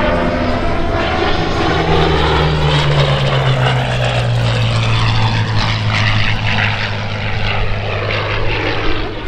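Supermarine Spitfire Mk Vc's Rolls-Royce Merlin V12 engine and propeller during a low flypast. The engine note drops in pitch from about a second and a half in as the aircraft passes, then holds steady.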